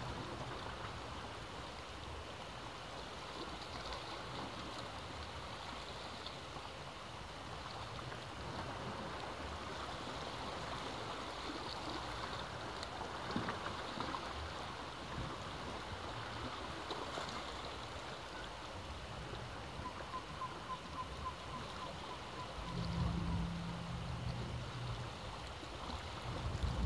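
Sea waves washing against the rocks at the foot of a cliff: a steady rushing with a low rumble underneath. Near the end a low, steady hum joins in.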